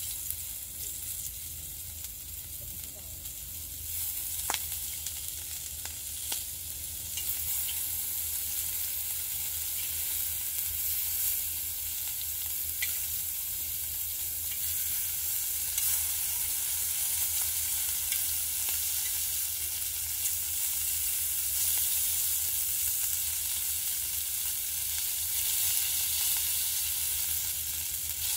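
Thick slices of pork belly sizzling on a hot black griddle pan, the sizzle growing louder about seven seconds in as more slices go down. Two sharp clicks a few seconds in.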